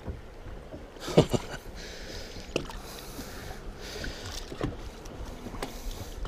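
Small waves lapping against the side of a fishing boat, with a few short knocks.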